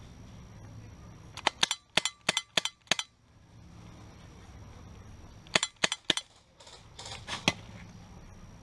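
Airsoft guns firing quick strings of sharp single shots: about seven shots between a second and a half and three seconds in, four more a little before the middle of the second half, and a few more after that.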